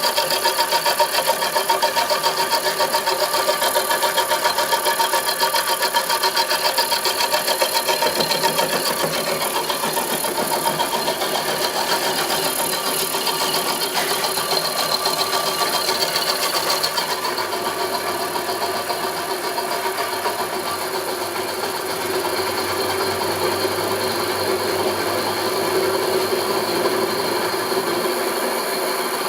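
Homemade milling machine running steadily, a continuous mechanical whir with a fast rattle. Its sound changes a little past the middle.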